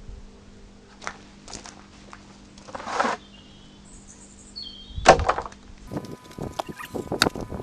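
Scattered knocks and thuds of pieces of the split sycamore log being handled, the loudest about five seconds in, over a faint steady low hum.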